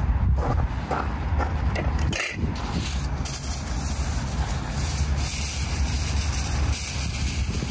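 Aluminium foil pulled off its roll and crinkling from about two seconds in, over a steady low rumble.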